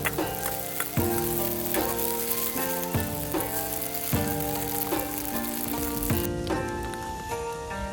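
Food sizzling in a hot pan over background music of plucked, stepped notes; the sizzling cuts off abruptly about six seconds in.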